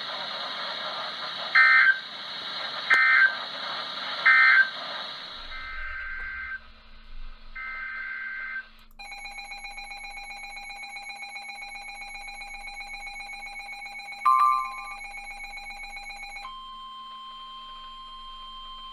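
Emergency Alert System end-of-message signal: three short, loud screeching data bursts. Then two brief electronic beeps, and from about halfway a steady electronic alert tone that changes pitch near the end, ahead of the next alert.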